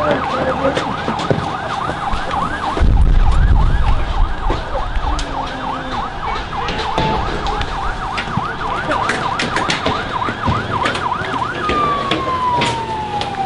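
Police siren on a fast yelp, sweeping up and down about four times a second. A loud low rumble comes in about three seconds in, sharp clicks and bangs are scattered through, and a separate tone slides down near the end.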